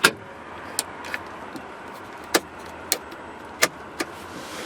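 Scattered sharp clicks and light knocks, about seven in all, over a steady low hiss: the cab's fittings being handled.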